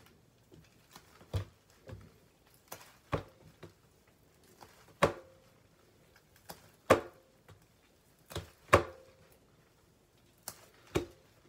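Scattered sharp taps and knocks, irregularly spaced about one every second or two, as bread dough is shaped by hand over a metal baking tray.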